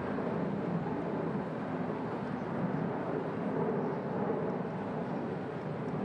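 Steady outdoor background rumble, even and unbroken, with no music or speech.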